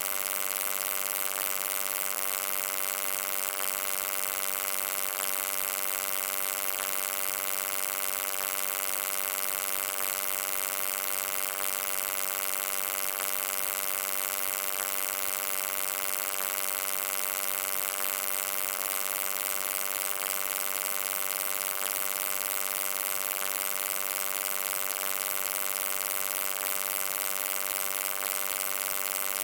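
Steady electrical hum: a buzz of many evenly spaced tones with a bright hiss over it, unchanging in pitch and level.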